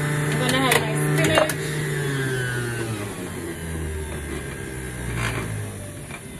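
Electric centrifugal juicer motor running with a steady hum and some clattering near the start, then falling steadily in pitch and fading as it winds down.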